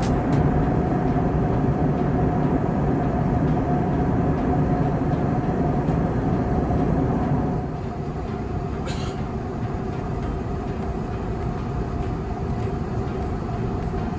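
Airliner cabin noise in flight: a steady engine and airflow rumble. It drops a little in level about seven and a half seconds in, and a brief hiss sounds about nine seconds in.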